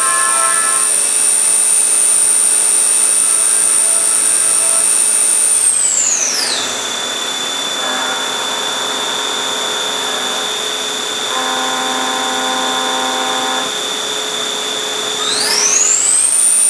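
CNC milling machine spindle running with a high steady whine while the end mill cuts. The whine glides smoothly down to a lower pitch about six seconds in, holds there, and climbs back up near the end.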